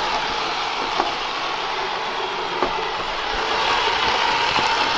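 Roomba Sage robot vacuum running: a steady whir from its vacuum motor and brushes, with a couple of light knocks.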